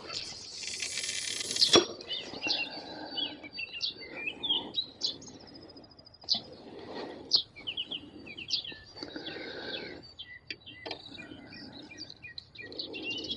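A cast with a spinning rod: line hisses off the spinning reel's spool for nearly two seconds and stops with a sharp click, then the reel is wound in several short spells. Songbirds chirp throughout.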